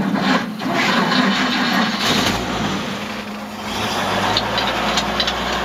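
1948 Chevrolet Thriftmaster pickup's 216 straight-six engine running, heard from inside the cab, settling into a steady low idle about midway through.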